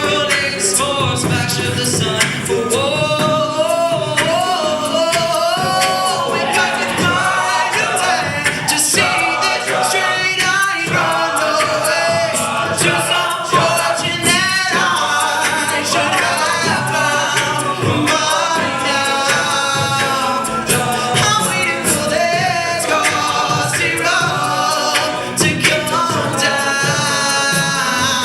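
A cappella vocal group singing in several-part harmony, with no instruments.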